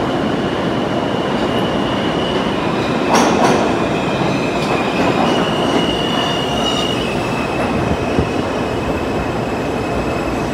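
R160 New York City subway train running along the track: a loud, steady rumble with high wheel squeal held throughout, and a sharp metallic clank about three seconds in.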